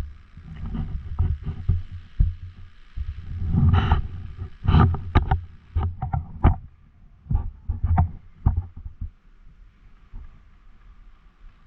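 A run of irregular low thuds and sharp clicks over a faint hiss, densest in the middle and thinning out near the end.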